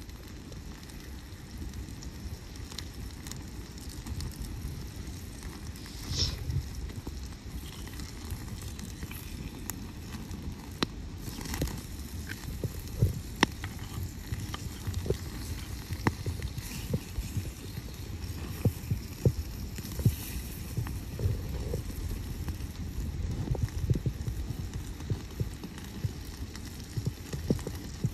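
Wood campfire burning with a low, steady rumble of flame and frequent sharp crackles and pops from the burning wood, the pops growing more frequent in the second half.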